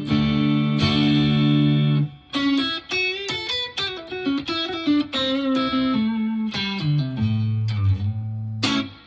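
Fender electric guitar played through a UAFX Dream '65 amp-emulator pedal, an emulation of a '65 Fender Deluxe Reverb. A held chord rings for about two seconds, then a phrase of single picked notes works its way down to low notes, and a new chord is struck near the end.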